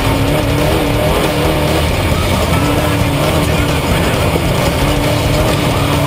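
Off-road race truck's engine running at speed, heard from a camera mounted on the truck, under a steady rush of wind and road noise.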